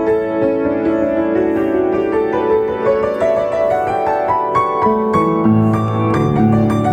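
Piano playing an arrangement of a worship song, with deeper bass notes coming in about five seconds in.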